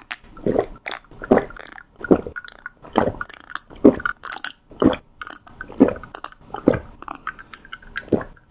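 Close-miked gulps of Milkis, a carbonated milk soda, being drunk: a steady run of about nine swallows, a little under a second apart.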